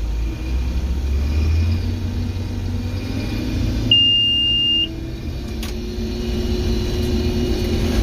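Case IH 1680 combine running and harvesting, heard from inside the cab as a steady low rumble. A single high beep lasting about a second sounds partway through.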